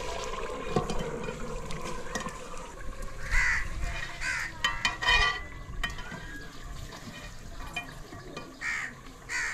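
A metal ladle stirring a stew in a metal pot over a wood fire, with several short crow caws, a cluster in the middle and more near the end.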